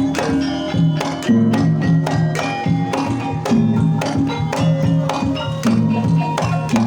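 Javanese gamelan music playing a Banyumasan tayub gending: struck bronze metallophones and gongs ringing over a hand-drum rhythm.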